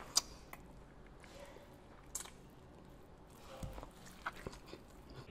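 Close-up eating sounds of a man biting into and chewing a cheese-drenched quadruple cheeseburger, with scattered sharp clicks, the loudest just after the start.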